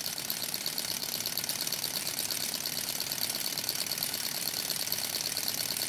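Small model Stirling hot-air engine running with a steady, rapid mechanical clatter while it turns the helicopter rotor. It keeps going on an alcohol burner that is close to running dry.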